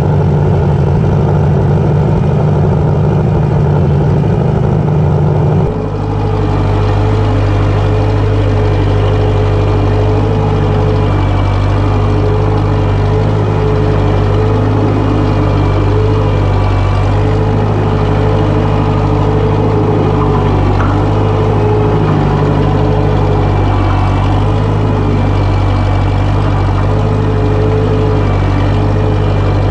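1956 Case 300 tractor engine running steadily, pulling a moldboard plow. About six seconds in the sound changes abruptly, then the engine runs on as a steady hum.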